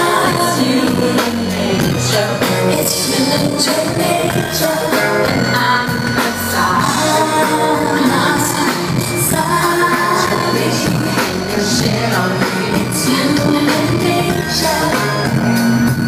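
Live pop concert music played loud over the arena sound system, with singing over the band.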